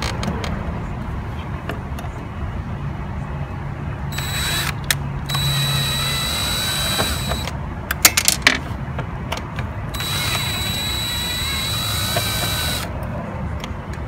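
Power screwdriver running twice, backing out the two back screws of a wine cooler's control board, with a few sharp clicks between the runs, over a steady low hum.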